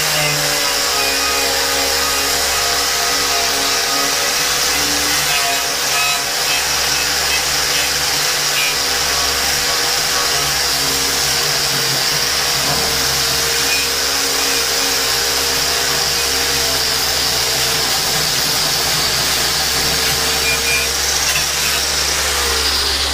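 Angle grinder running steadily while grinding rust off a quarter-inch steel plate, a high whine over the ringing of the plate. The motor winds down at the very end.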